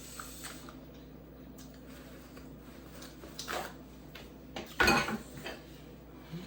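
Dishes and cutlery clattering at a table: a short clink about three and a half seconds in and a louder clatter around five seconds in.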